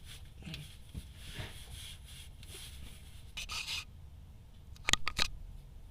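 Low rumble with a brief rasp about three and a half seconds in, then a quick cluster of sharp clunks near the end: the clunking and grinding from the rear end of a 2008 Honda Accord V6 under braking. It happens on both rear sides and persists after new rotors and pads, lubed caliper slide pins and a check of the heat shields.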